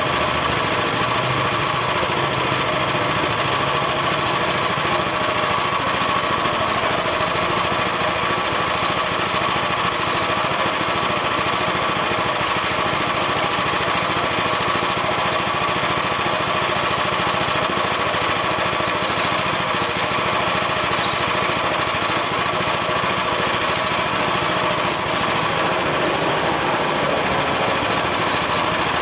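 Air compressor running steadily to feed a gravity-feed paint spray gun, with the hiss of air and paint from the gun as a signboard is spray-painted.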